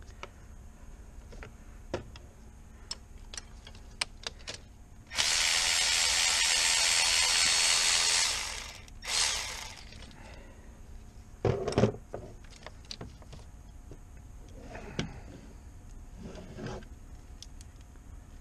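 Cordless power tool running steadily for about three seconds, then a brief second burst, with scattered sharp clicks before it and a few knocks afterwards.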